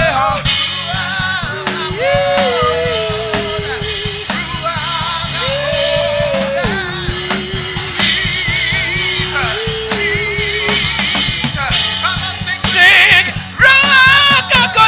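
Worship music: a drum kit keeps a steady beat under a voice holding long, sliding notes. It grows louder near the end.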